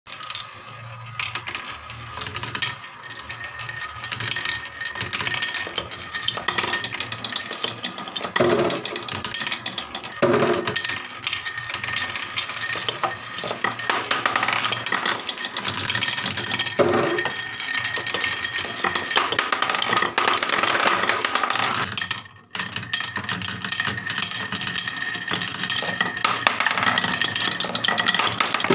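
Glass marbles rolling and rattling around a wooden spiral marble-run track, a steady wooden rumble with many small clicks as the marbles knock against the walls and each other. The sound breaks off sharply for a moment about three-quarters of the way through, then resumes as marbles roll along a carved wavy wooden rail.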